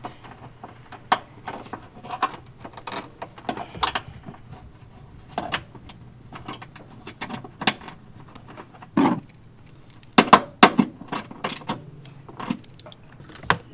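Irregular clicks and small knocks of hand tools and metal parts being handled while a ground wire is fastened to the vehicle body, with a louder run of clicks about ten seconds in.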